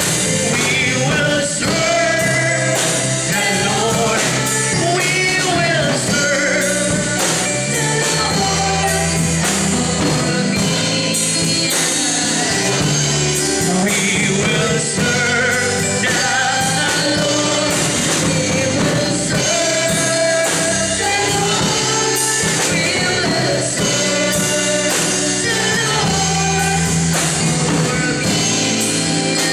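A man singing a gospel worship song into a handheld microphone, amplified over instrumental accompaniment with a steady beat.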